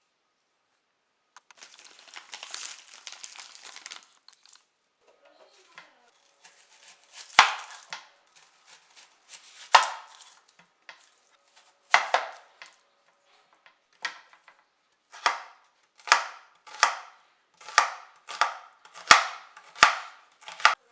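Knife chopping on a cutting board: a few slow, separate cuts, then a run of quicker strokes. Before the chopping, about two seconds in, a brief rustle like crinkling packaging.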